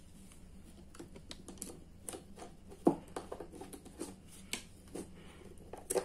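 Irregular small clicks and taps of a screwdriver and wire being worked into the screw terminals of plastic-bodied contactors and a miniature circuit breaker, with one sharper knock about three seconds in.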